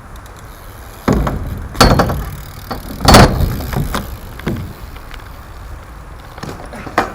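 BMX bike hitting the ground and clattering: a run of hard knocks about one, two and three seconds in, the second with a brief metallic ring, then a few lighter knocks near the end.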